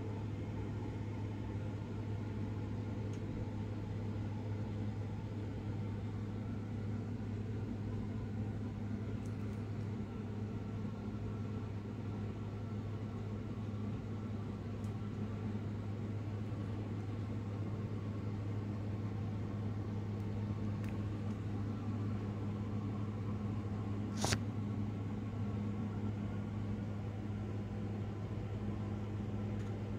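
A steady low mechanical hum that does not change, with a single sharp click near the end.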